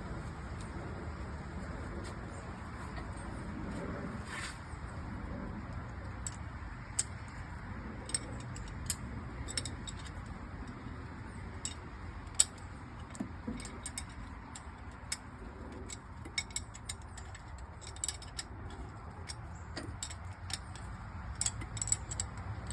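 Light metallic clicks and clinks of hand tools and parts being handled, scattered irregularly and more frequent after the first few seconds, over a steady low hum.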